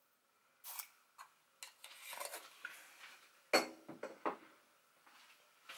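A few light clicks and knocks of a plastic measuring spoon and kitchen containers being handled and set down on a stone countertop, with a soft rustle around two seconds in; the sharpest knock comes about three and a half seconds in.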